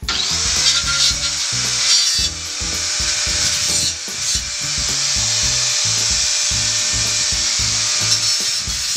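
Handheld angle grinder spinning up and then cutting into a rectangular steel tube: a steady, loud, high-pitched grinding hiss with brief dips about two and four seconds in. Background music with a beat plays underneath.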